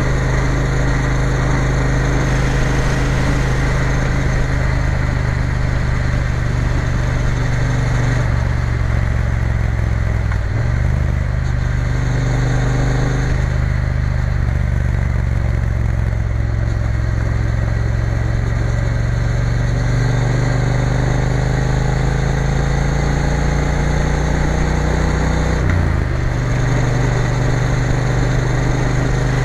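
Triumph Bonneville T120's parallel-twin engine running steadily under way. Its pitch briefly dips about ten seconds in, climbs slowly in the last third and drops sharply near the end.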